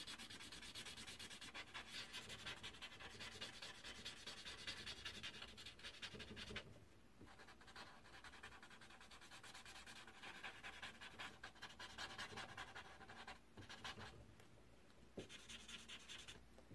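Faint, rapid scratching of a marker tip rubbing back and forth on paper as a small area is coloured in. It comes in stretches, with short pauses about seven and fourteen seconds in.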